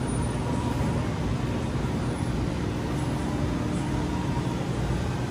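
Steady background noise of a supermarket aisle lined with freezer cases: a constant low rumble and hiss with a faint steady hum, no single event standing out.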